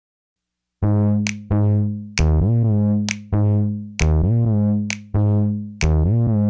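Electronic music: after a moment of silence, a synthesizer plays short, loud, repeated bass notes, some sliding in pitch, over a crisp drum-machine click.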